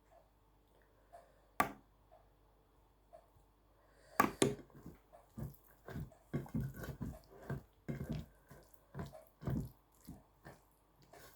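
Close-miked eating sounds: a single sharp click, then from about four seconds in a run of wet chewing and mouth clicks, a few a second.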